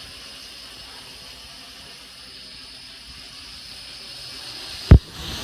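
Small quadcopter drone propellers whining steadily, growing a little louder near the end, then one sharp loud thump just before the end.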